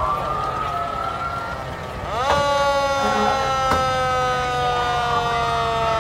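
Fire engine siren sounding: wailing up in pitch, then about two seconds in a louder held tone starts abruptly and sinks slowly in pitch.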